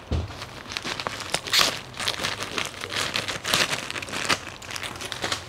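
Large scissors cutting open a mailer bag, the packaging crinkling as it is handled, in a run of irregular short noises.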